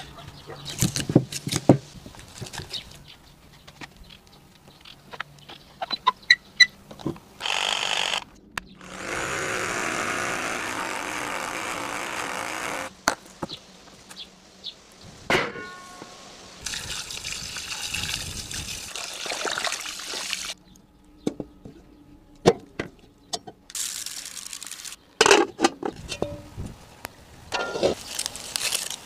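Kitchen handling sounds of raw beef marrow bones and metal cookware: scattered knocks and clatter, with a few seconds of pouring water partway through and more clattering near the end.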